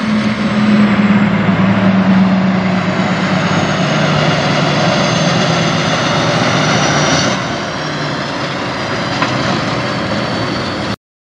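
Diesel engine of a bobtail semi tractor pulling away, a loud steady engine drone with a faint high whine above it. It gets quieter about seven seconds in and cuts off abruptly just before the end.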